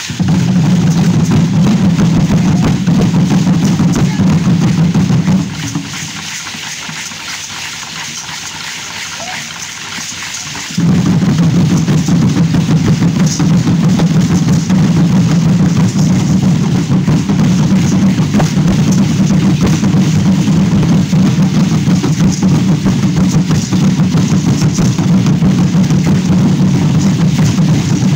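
Several large upright wooden huehuetl drums played together in a dense, steady drumbeat. The drumming breaks off suddenly about five seconds in and starts again a few seconds later.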